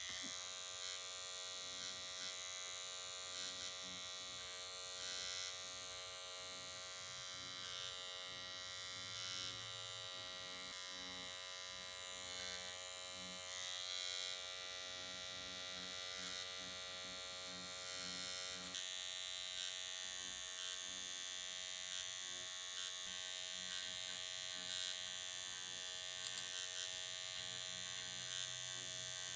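Dr. Pen electric microneedling pen running with a steady motor buzz as its needle cartridge is worked over the skin, with a faint, uneven lower pulsing underneath.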